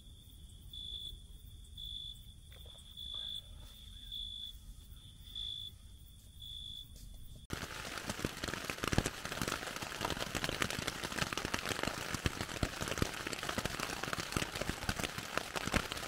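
Crickets chirping: one steady high trill that swells a little over once a second. About seven and a half seconds in it cuts off suddenly, giving way to a dense crackling noise.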